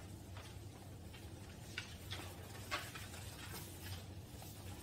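Sheets of paper being handled: faint scattered rustles and soft ticks, over a low steady room hum.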